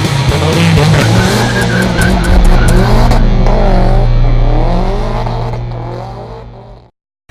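Drift car sliding: the engine held at high revs while the tyres squeal with a wavering pitch, fading out near the end.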